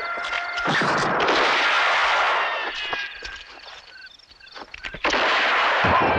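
Layered gunshot and ricochet sounds in an electroacoustic composition: a loud blast less than a second in and another about five seconds in, each a long noisy wash that fades over a couple of seconds. In the quieter stretch between them come scattered clicks and thin falling whines.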